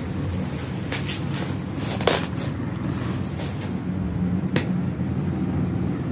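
A knit garment being handled and unfolded, with rustling and a few short crinkles about one, two and four and a half seconds in, over a steady low hum.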